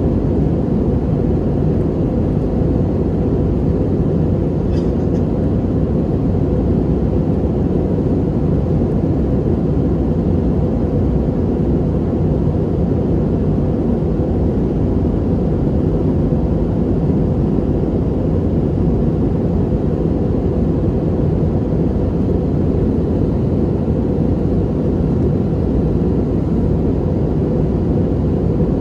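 Steady jet engine and airflow noise heard inside an airliner cabin, a deep even roar that holds the same level throughout.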